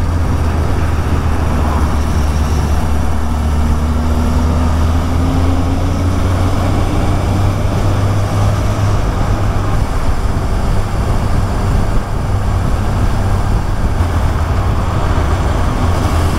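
Honda CB1000R's inline-four engine running under way, heard with steady wind and road noise; its tone climbs slowly in pitch over the first several seconds as the bike pulls uphill.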